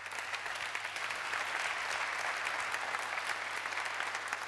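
Audience applauding, many hands clapping together. It swells quickly at the start, then holds steady.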